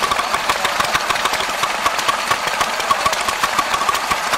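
Vintage stationary engines running steadily, with a rapid, regular beat of firing strokes and mechanical clicking.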